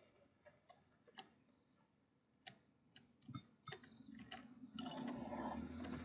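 Sparse, irregular light taps and clicks of a small bird pecking at seeds in glass bowls on a wooden feeder shelf, some followed by a brief high ring. About five seconds in, a low steady hum rises underneath.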